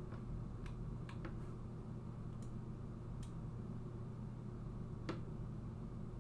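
Several short sharp clicks of a computer mouse, scattered irregularly, over a steady low electrical hum.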